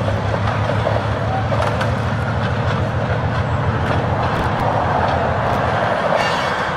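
HO-scale model freight cars rolling slowly along the track, a steady rumble of small metal wheels on rail with faint clicks at the rail joints.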